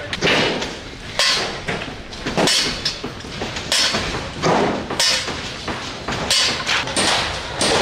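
Sledgehammer blows struck over and over at an even pace, about one every second and a quarter. Each is a sharp strike with a short ring after it.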